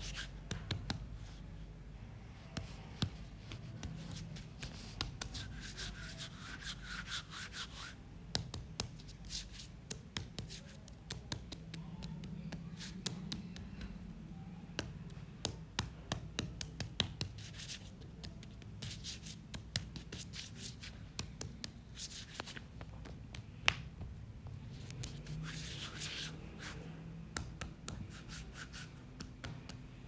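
Hands handling and working small building materials, with irregular scratching, rubbing and light taps.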